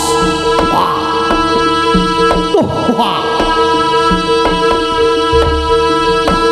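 Live jaranan ensemble music: hand drums play a busy pattern with pitch-bending strokes over a steady, held reedy note.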